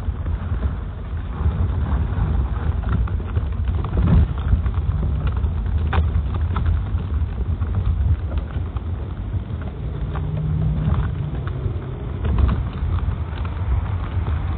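Low rumble of wind and handling noise on a handheld camera's microphone while walking, with footsteps on the wet, slushy pavement.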